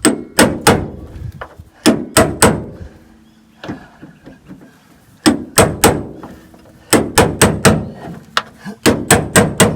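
Hammer blows on a hand impact driver, metal on metal, struck in quick groups of three to five with short pauses between. This is driving out seized, rust-corroded door hinge screws on a 1966 VW Beetle.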